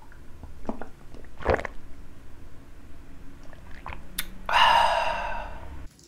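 A man drinking down a shot of soju: gulping and small mouth sounds, a sharp click about four seconds in, then a breathy exhale lasting over a second that cuts off just before the end.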